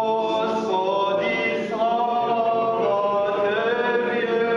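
Orthodox liturgical chant: voices singing a slow melody in long held notes, moving gently from pitch to pitch.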